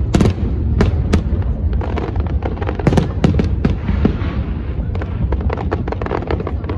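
Fireworks display: many sharp bangs of shells bursting in quick succession, some in close clusters, over a continuous low rumble.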